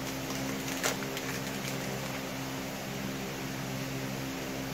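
Steady low mechanical hum, with a brief click of packaging being handled about a second in.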